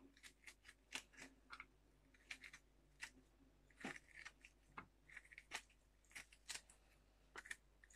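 Faint, irregular little scrapes and crunches, a few a second, of a small knife tip gouging the pulp and seeds out of a peeled round gourd (tinda).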